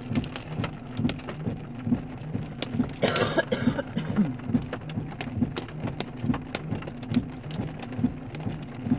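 Hail and rain drumming on a car's roof and windows, heard from inside the cabin: a steady patter broken by many sharp, irregular ticks of hailstones hitting. About three seconds in, a brief louder rushing hiss rises over it for roughly a second.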